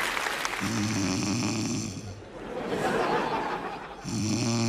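Exaggerated comic snoring by a woman: two loud snores about three and a half seconds apart, with a noisy breath between them.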